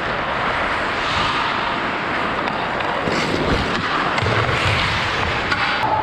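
Hockey skate blades gliding and scraping on rink ice, heard close up from a skater's body-worn camera, with a sharper, harsher scrape about three seconds in.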